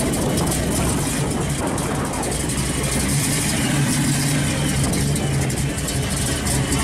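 Engine of a 1955 Chevrolet gasser running at low speed as the car rolls slowly past. Its steady exhaust note grows louder about halfway through.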